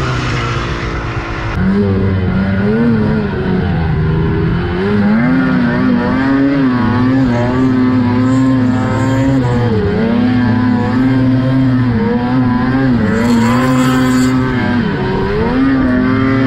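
800 cc two-stroke mountain snowmobile engine running hard through deep powder, its pitch rising and dipping again and again as the throttle is worked.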